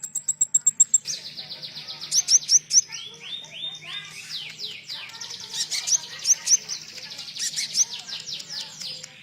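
Konin songbird singing fast: a high, rapid trill for the first second, then a long unbroken run of quick, sharp downslurred chirps, about eight or ten a second, with a few lower arched whistles mixed in.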